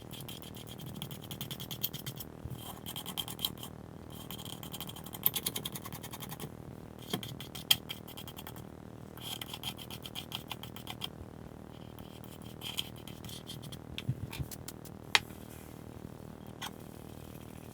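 Repeated short bouts of hand scraping, each about a second long with pauses between, and a few sharp clicks.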